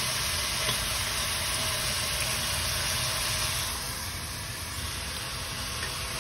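Chicken and freshly added tomatoes sizzling in an oily pot, a steady hiss that eases a little for a couple of seconds about two-thirds of the way in, then picks up again.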